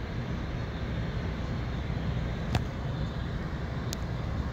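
Steady low rumble of outdoor airport ambience with distant engine noise, broken by two faint short clicks, one midway and one near the end.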